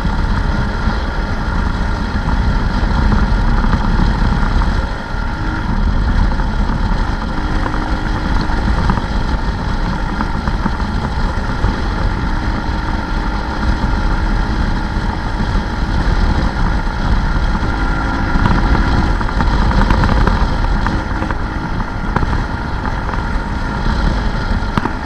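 Small ATV engine running steadily under way, with wind buffeting the microphone.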